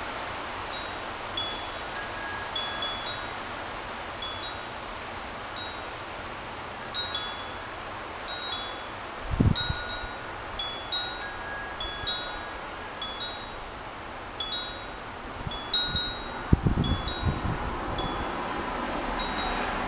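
Hummingbird wind chime ringing irregularly in strong wind, its chimes struck at random with clear, high ringing tones over a steady rush of wind. Gusts hit the microphone with low rumbles about halfway through and again near the end.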